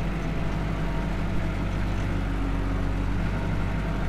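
Farm tractor engine running steadily, heard from inside the cab as a constant low hum.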